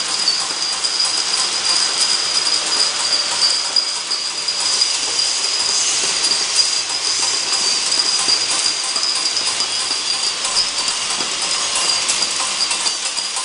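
Automatic ampoule labeling machine running: a steady high-pitched whine over a continuous dense clatter as glass ampoules ride along its roller conveyor.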